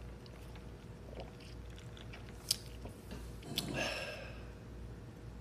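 Quiet mouth sounds of drinking an iced drink through a straw, sipping and swallowing. There are two sharp clicks, the second a little over three and a half seconds in, followed at once by a short breathy noise.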